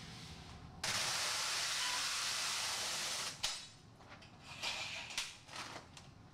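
Large sheet of plastic adhesive film being peeled away: a loud, even ripping hiss for about two and a half seconds that cuts off suddenly, then a few softer rustles of the film sheet being handled.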